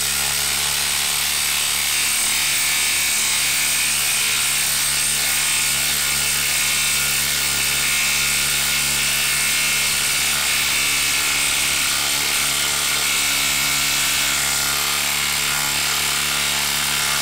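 Milwaukee M12 Fuel brushless impact driver on speed 3, hammering steadily without a break as it drives a 4-inch lag screw into a wooden stump through an impact socket and adapter.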